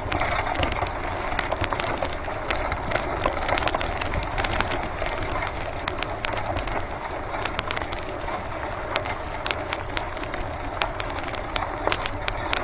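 Mushing bike cart rolling along a dirt trail behind a team of huskies: a steady rolling rumble, dotted throughout with many small, sharp clicks and rattles.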